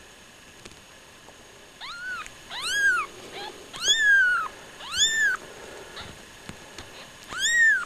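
Newborn kittens mewing: five high-pitched mews, each rising then falling in pitch, starting about two seconds in.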